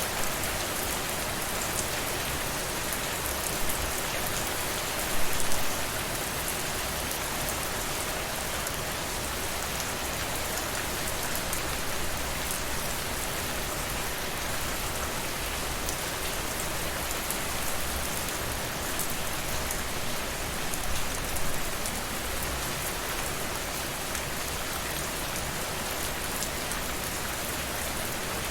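Steady rainfall: an even hiss of rain with fine ticks of individual drops. Brief louder patches come about five seconds in and again about twenty-one seconds in.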